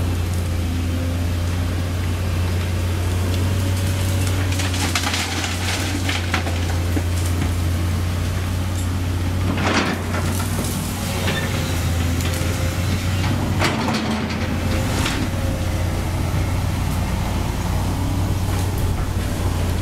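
Sumitomo SH200 hydraulic excavator's diesel engine running steadily as the machine works, with a few brief cracks and clatters of the bucket at work about five, ten and fourteen seconds in.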